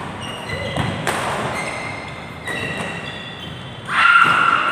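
Badminton play on an indoor court: short knocks of rackets on the shuttlecock and footfalls, and thin high squeaks of sports shoes on the court floor. The loudest sound comes suddenly about four seconds in, as the next rally starts.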